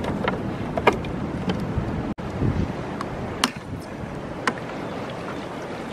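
Wind buffeting the microphone, a steady low rumble, with a few light clicks and taps scattered through it as the mower's filler caps and a plastic gas can are handled.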